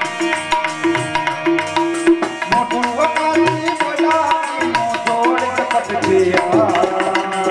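Folk music for a Gujarati dayro: tabla playing a quick, steady beat under sustained melody instruments, with a wavering melodic line coming in about two and a half seconds in.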